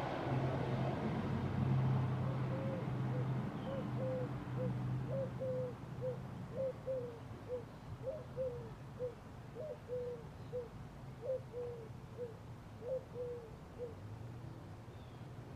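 Ceiling fan motor humming steadily, with a run of short, high squeaks at an uneven pace of roughly two a second.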